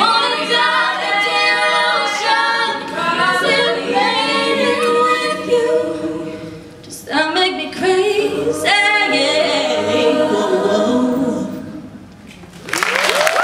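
Mixed-voice youth a cappella group singing the closing phrases of a song, a female lead over the ensemble's voices, with a short break about halfway through. The singing dies away, and near the end the audience bursts into applause and cheering.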